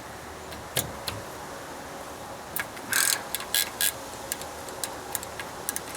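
Scattered metallic clicks and clinks of hand tools, a wrench and sockets, on steel fasteners, with a cluster of sharper clinks about three seconds in, over a steady background hum.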